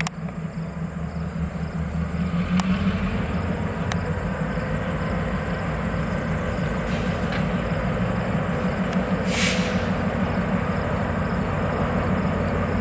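Diesel-hauled train running by with a steady rumble, getting a little louder about two seconds in, and a brief hiss about nine seconds in.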